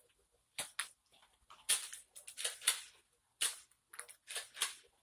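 Nerf foam-dart blasters firing: a string of about a dozen short, sharp puffs at irregular intervals.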